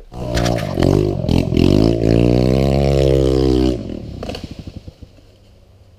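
Dirt bike engine under hard throttle, its pitch climbing and dipping with the revs, then held high for a couple of seconds. About three and a half seconds in the throttle is shut and the engine falls away to a low, uneven idle as the bike comes to a stop.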